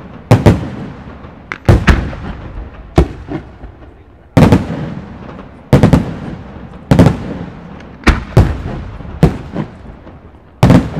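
Aerial firework shells bursting in quick succession, a sharp bang every second or so, often two close together, each followed by a fading echo.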